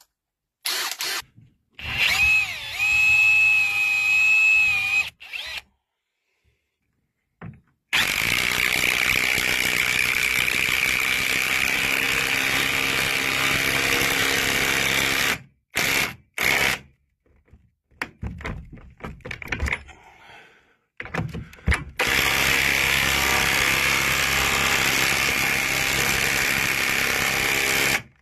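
Bosch Professional 18V 2-in-1 impact driver, fitted with its socket (wrench) attachment, hammering 100mm coach screws into a timber stringer in two long runs of impacting, about eight and about twenty-two seconds in, with short bursts between. Before that, a drill whines steadily for about three seconds as the 8mm pilot hole is drilled.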